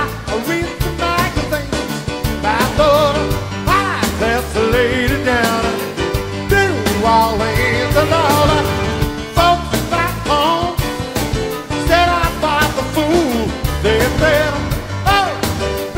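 Live concert recording of a band playing an upbeat rock-and-roll song with a steady, driving beat.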